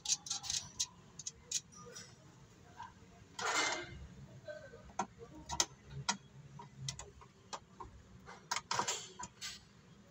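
Hand ratchet clicking in short, irregular runs as bolts are tightened on a metal battery tray, with two brief scraping rustles, one in the middle and one near the end.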